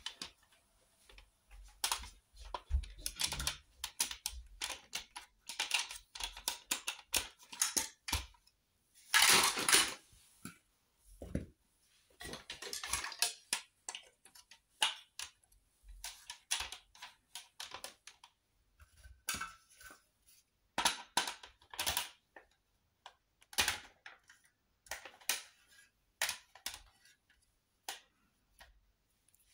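Hard plastic marble-run pieces being handled and pushed together: irregular clicks and clatter, with a louder clatter about nine seconds in.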